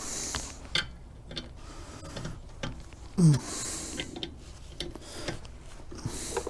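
Small metallic clicks, scrapes and glove and clothing rustle of hand work on a brake rotor and hub as the Loctite-coated retaining screws are driven in. A brief falling-pitched sound about three seconds in is the loudest moment.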